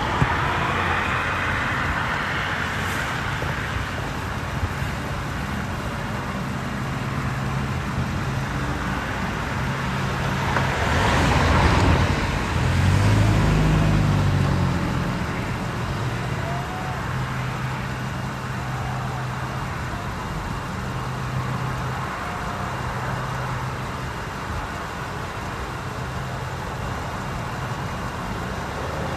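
Highway traffic going by steadily, with one louder vehicle passing about eleven to fourteen seconds in, over a low steady hum.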